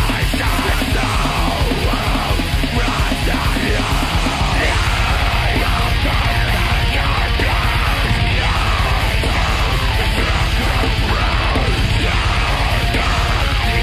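Black metal recording: fast, distorted guitars and drums with harsh screamed vocals. About four and a half seconds in, the low end turns denser and faster.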